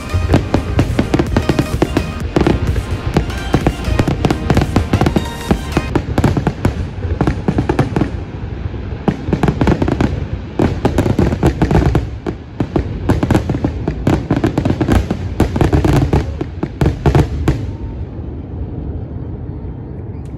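Aerial fireworks display bursting in rapid, dense succession, booms and crackles echoing across the river valley. The barrage dies away about eighteen seconds in.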